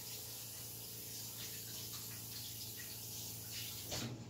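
Kitchen sink tap running faintly as hands are washed under it, with a short louder sound near the end.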